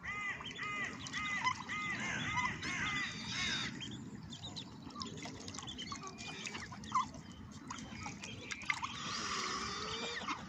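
Birds calling: a quick run of repeated arched chirps, about three a second, for the first few seconds, then scattered calls and another cluster near the end, over a steady low rumble.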